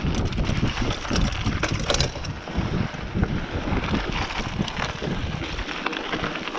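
Mountain bike rolling fast down a dirt trail: wind buffets the microphone over the rumble of the tyres on the dirt, with frequent short clicks and rattles from the bike.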